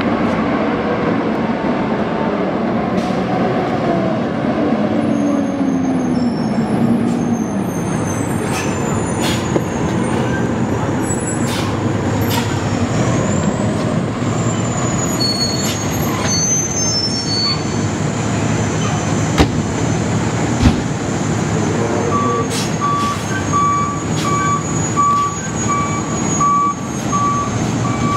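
San Francisco Fire Department pumper engine's diesel running as it drives up and turns in the street. About three-quarters of the way through, its reversing alarm starts beeping steadily, about two beeps a second, as the engine backs into the station.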